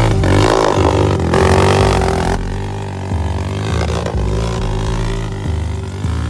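A quad ATV engine revving as it rides close by, loudest in the first two seconds, over music with a deep bass line that changes in even steps.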